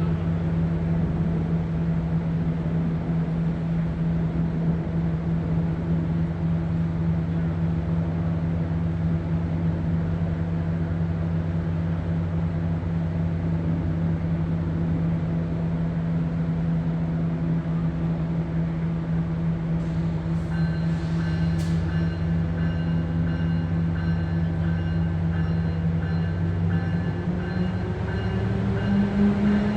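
NJ Transit ALP-45DP dual-mode locomotive's diesel engines running steadily while the train stands. About two-thirds of the way in come a few clicks and a thin, high steady tone. Near the end the engines rev up, rising in pitch and getting louder, as the locomotive throttles up to depart.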